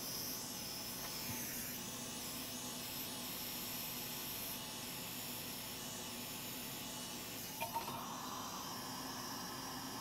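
Hot air rework station blowing a steady hiss of hot air onto freshly UV-cured solder mask on a graphics card's circuit board. A couple of soft clicks come about three-quarters of the way through.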